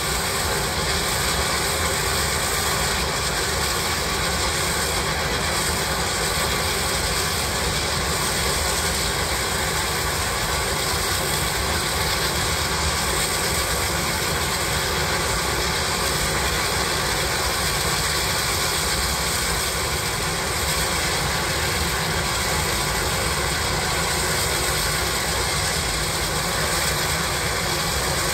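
Steam shovel working hard to throw sparks from its stack, giving a steady, unbroken mechanical rushing noise with no distinct beat.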